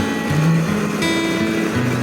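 Background music led by plucked acoustic guitar, notes changing about every half second.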